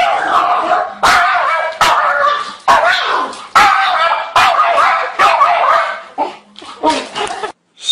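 Pug barking and yowling in a run of drawn-out calls with wavering pitch, about one a second, ending with a few shorter barks. It is barking at its own reflection in a mirror.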